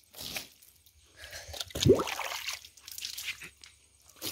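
Water thrown onto a pickup truck's windshield and bonnet, splashing and running off the metal in a few separate splashes, the loudest about two seconds in.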